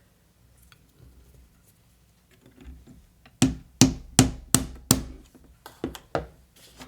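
A small hammer tapping on the pieces of a miniature book nook kit to drive stuck pegs into their slots: five sharp strikes in quick succession about halfway through, then a few lighter taps.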